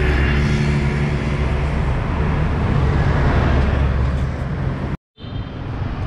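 Road traffic close by: a motor vehicle's engine running with a steady low hum over tyre and road noise. It cuts off abruptly about five seconds in, then fainter street noise returns.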